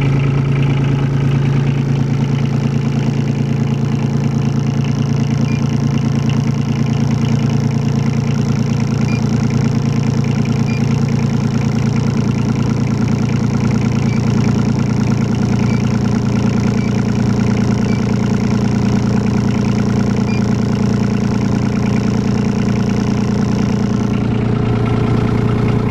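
Caterpillar 302.7D CR mini excavator's Yanmar diesel engine idling steadily just after a cold start.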